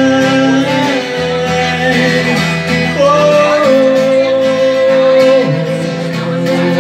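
Live acoustic guitar strummed steadily, with a man's voice holding long wordless notes over it that step up in pitch about three seconds in.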